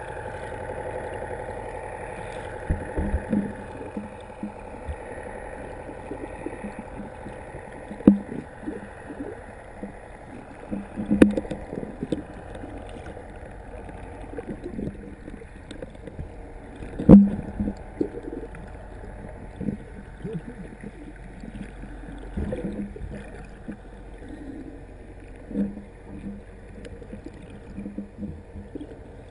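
Muffled underwater noise heard through a submerged camera: a steady hiss and rumble of water with occasional gurgling and scattered sharp knocks, the loudest about seventeen seconds in.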